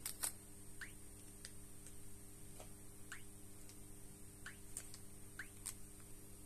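Scattered faint clicks and short ticks of a finger tapping the touchscreen of a bus route-announcer controller, the loudest about a quarter second in, over a steady electrical hum.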